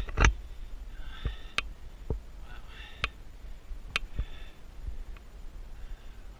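A person breathing and sniffing close to the microphone in short breaths about a second apart, with scattered clicks and knocks from movement.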